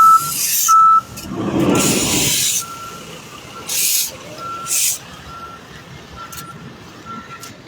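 A vehicle's reversing alarm beeping in a steady single-tone pattern, a little faster than once a second, loud at first and then fainter. A rush of noise comes about a second and a half in, and two short hissing bursts follow around the middle.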